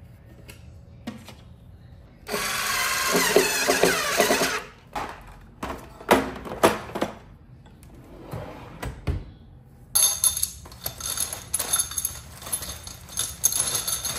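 Small hard objects handled and rattling. A steady rattle of about two seconds, then scattered knocks, then a long run of quick clicks and clinks.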